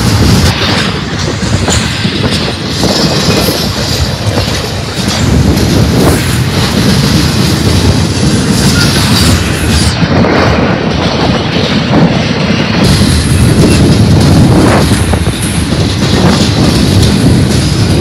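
Double-stack intermodal freight train passing close by: the well cars' steel wheels running and clacking on the rails in a steady, loud rumble, with wind buffeting the microphone.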